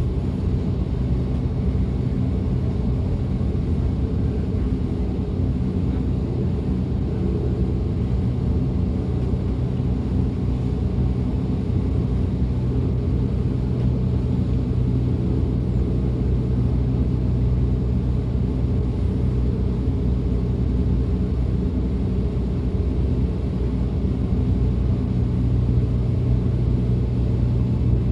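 DB Class 425 electric multiple unit running at a steady speed, heard from on board: a steady low rumble with a constant hum underneath.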